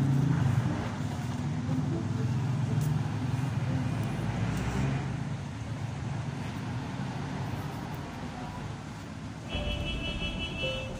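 A steady low mechanical rumble with a hum in it, like a motor running, louder in the first half. Near the end a deeper rumble and a high ringing tone come in.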